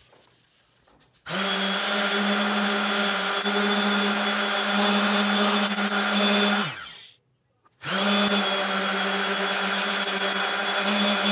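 DeWalt random orbital sander with a white pad running on a wooden board, working an oil finish into the wood: a steady motor whine. It starts about a second in, runs for about five seconds, winds down in pitch and stops, then starts again and runs on.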